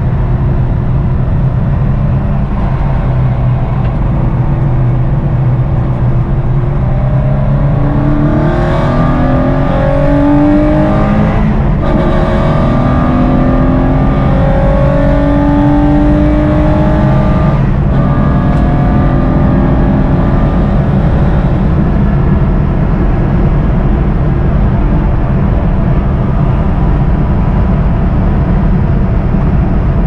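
Porsche 993 Cup's air-cooled flat-six, heard from inside the cabin. It runs steadily, then pulls through the gears with rising revs from about seven seconds in, with quick upshifts about twelve and eighteen seconds in, and settles into steady running for the rest.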